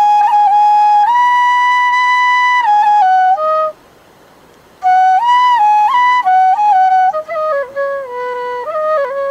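Background music: a solo flute playing a slow melody of long held notes with quick ornamental turns, breaking off for about a second partway through.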